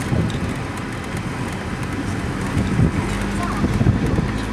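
Wind buffeting the microphone with road noise from a moving car, a steady engine hum coming in about three seconds in.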